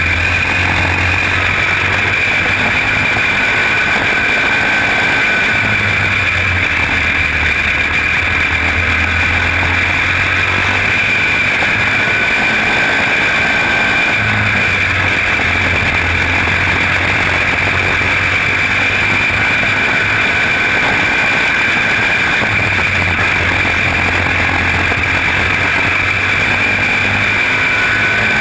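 Quarter midget race car's single-cylinder engine running flat out, heard from a helmet camera on the driver, with wind noise. It holds a steady high whine that dips slightly in pitch now and then.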